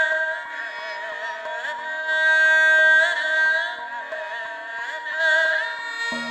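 Korean traditional fusion ensemble music led by a high bowed haegeum melody with sliding, wavering notes over steady held tones.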